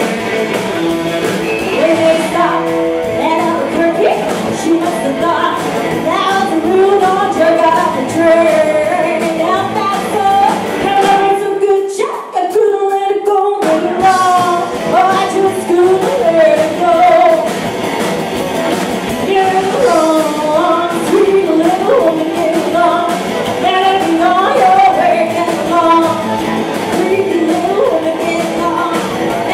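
Live rockabilly band: a woman singing lead over slapped upright bass, drums and a hollow-body electric guitar. About twelve seconds in the bass and drums drop out for under two seconds in a short break, then the full band comes back in.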